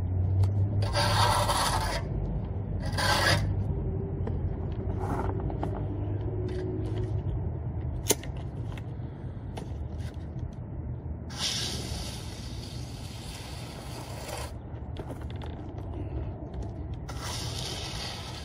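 Hand trowel scraping and smoothing wet cement, in separate strokes: two short ones in the first few seconds, a longer one of about three seconds past the middle, and another near the end. A low hum runs under the first few seconds, and a single sharp click comes about eight seconds in.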